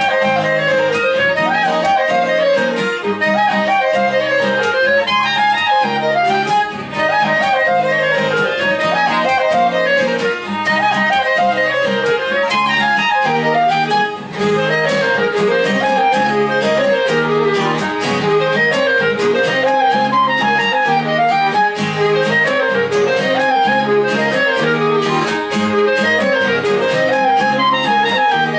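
Live instrumental folk-style music from a trio of violin, clarinet and acoustic guitar. A quick, winding melody runs over steady rhythmic guitar chords.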